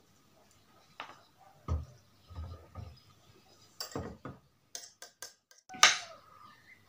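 Scattered light clicks, taps and soft knocks of tableware: a drink can set down on the table and chopsticks against a plate and bowl. The sharpest click comes near the end.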